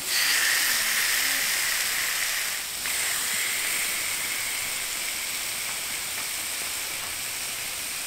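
Marinated seer fish steaks sizzling in oil on a hot flat stone griddle: a steady frying hiss, loudest at the start, with a brief dip a little under three seconds in.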